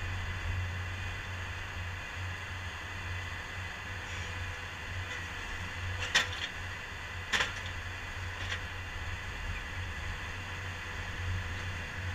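Compact track loader's engine running steadily while its hydraulic drive head screws a steel helical pile into the ground. Three sharp clicks come around the middle, about a second apart.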